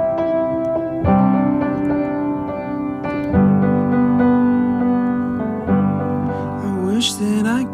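Background song with piano chords that change about every one to two seconds. A sliding, rising note comes in near the end.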